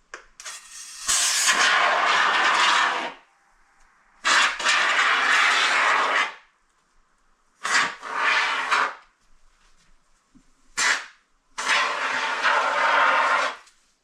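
Aerosol can of expanding foam spraying in hissing bursts: four long squirts of one to three seconds and one short spurt, with pauses between. The can is held upright instead of upside down, and the foam is old.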